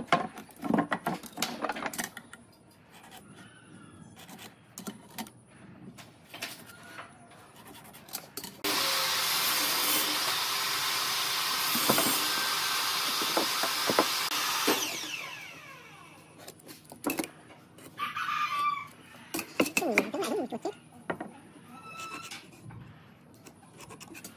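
Scattered knocks and clicks of wood being handled. About eight seconds in, a power tool starts abruptly, runs steadily for about six seconds, then winds down.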